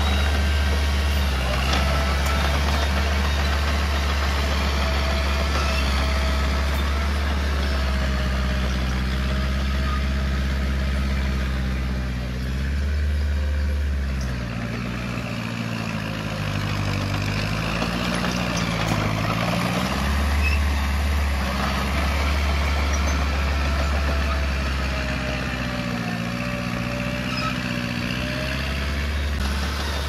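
Heavy diesel engine of an earthmoving machine running steadily, its pitch dipping and rising again about halfway through and once more near the end.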